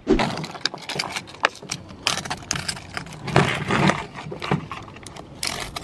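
Hands handling a clear plastic tackle box on a truck's textured plastic bed liner: rubbing and scraping with scattered light clicks and taps of plastic.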